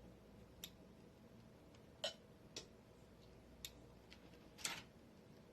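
Near silence broken by about five faint, separate clicks and taps, spaced unevenly: serving utensils touching a plate as food is set out.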